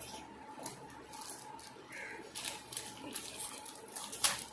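Plastic snack wrapper crinkling as it is handled, a string of short crackles that is loudest near the end.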